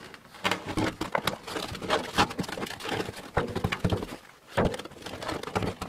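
New bicycle tyre being worked onto the wheel rim by hand: irregular rubbing, creaking and clicking of the tyre bead against the rim, with a louder thump about four and a half seconds in.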